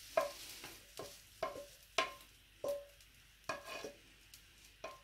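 Spatula scraping and tapping cooked vegetables out of a frying pan onto a plate: a string of sharp taps, roughly two a second, each with a short ring from the pan.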